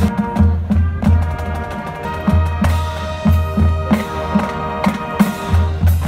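Drum and bugle corps playing: massed brass holding chords over a marching drumline, with deep, regular bass drum beats and sharp snare strikes.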